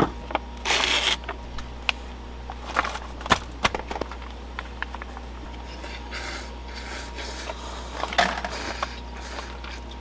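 Slurping and eating instant yukgaejang cup noodles: noisy slurps in bouts, with light clicks of utensils against the cup in between.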